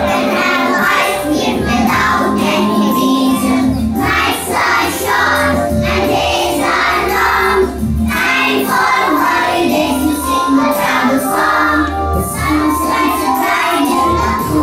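A group of young children singing a song together in chorus.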